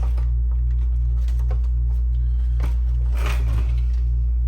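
Steady low electrical hum, with scattered small clicks and scrapes of computer parts being handled and fitted; a longer scraping rustle about three seconds in.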